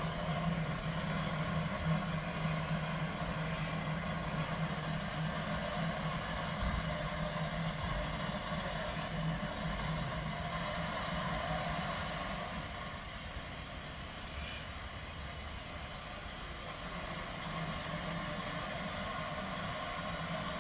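An engine running steadily, a constant low hum with a hiss over it, easing off a little about two-thirds of the way through and picking up again near the end.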